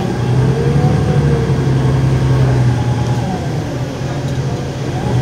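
A 2007 New Flyer D40LF transit bus under way, heard from inside the cabin: its 8.9-litre Cummins ISL diesel engine drones steadily, louder just after the start, with a fainter whine that rises and falls in pitch.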